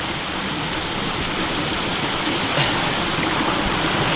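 Steady rushing water of a stream, an even noise with no breaks.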